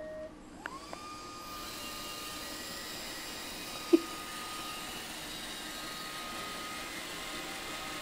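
An iRobot Roomba 560 robot vacuum starts a cleaning run. Its vacuum motor and brushes spin up in the first second or so with a rising whine, then run on as a steady whirring hum. About four seconds in there is one brief, sharp, loud sound.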